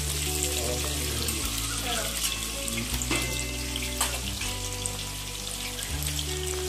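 Potato chunks frying in hot oil in a kadai: a steady sizzle with a few sharp crackles. Background music with sustained bass notes runs underneath, changing about every second and a half.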